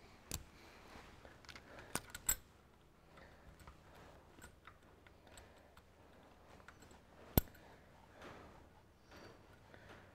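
Faint metallic clicks and clinks of small parts being fitted by hand to the camshaft sprocket of a tractor engine's double-row timing chain, with the lock tab and bolt being put on. There are a few separate sharp clicks, the loudest about seven seconds in.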